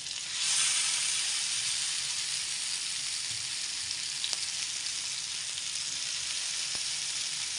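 Masala-coated sand whiting being laid into hot oil on a flat iron tawa, sizzling sharply as the fish go in, then settling into a steady frying sizzle. A few faint clicks sound over it.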